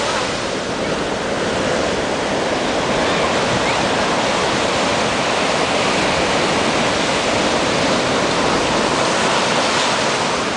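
Ocean surf breaking and washing up a sandy beach: a steady, loud rush of waves.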